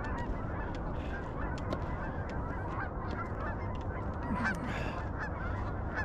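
A large flock of geese honking, many calls overlapping into a steady chorus.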